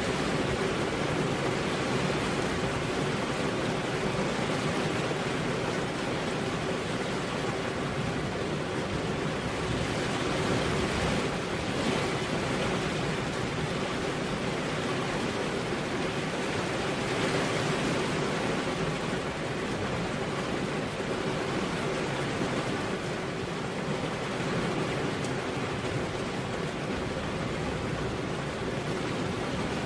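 Heavy rain falling on a road: a steady, even hiss with no thunder.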